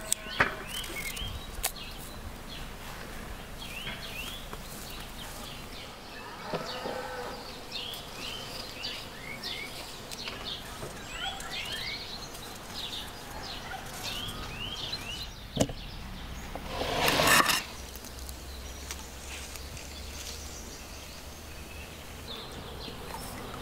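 Small birds chirping over and over in short, quick calls, with light clicks and scrapes from a paring knife peeling raw potatoes. About two-thirds of the way through, a brief loud rustling burst.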